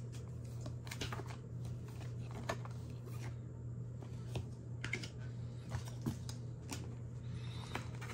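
Scattered light clicks and taps of trading cards being handled and flipped through, over a steady low hum.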